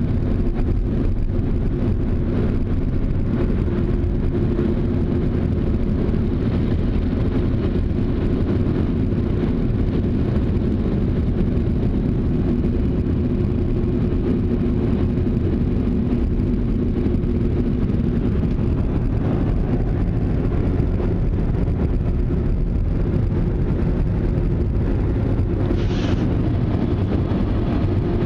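Ryko SoftGloss XS 2.0 rollover car wash running, heard from inside the car's cabin: a steady low rumble and hum of the machine as its spinning cloth brushes scrub the car. A short hiss comes near the end.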